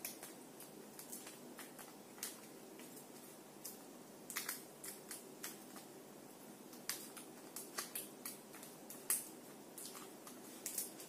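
Faint, irregular crinkles and light clicks of paper and cardboard being handled and pressed together by hand, with a few sharper clicks among them.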